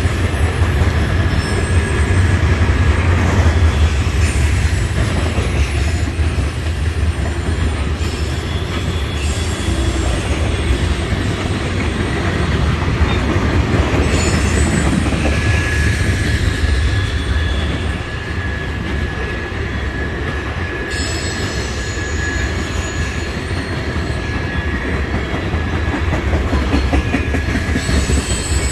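Freight train tank cars rolling past at trackside: a steady low rumble of steel wheels on the rails, with a thin, steady, high squeal from the train through the second half.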